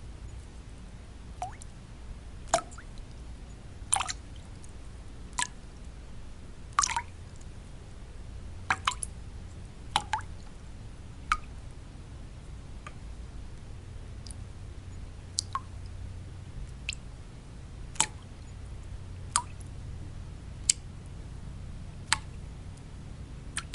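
Single water drops falling at irregular intervals, roughly one a second, over a steady low white noise.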